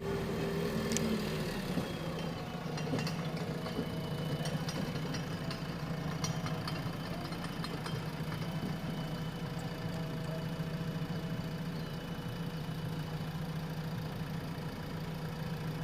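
Heavy diesel engine running steadily at idle, with scattered light clicks and knocks over the hum.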